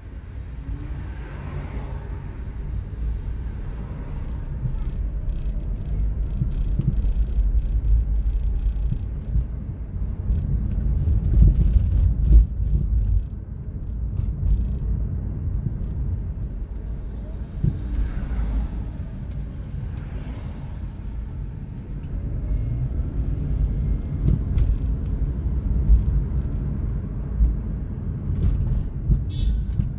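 Steady low rumble of a car driving along a town road, heard from inside the car. Other vehicles swish past twice, about a second in and again around the middle.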